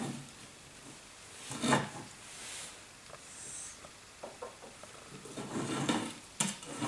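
Red plastic pCornet and its small parts being handled on a wooden floor: rubbing and light clicks and knocks, with a louder bump nearly two seconds in and a sharp click near the end.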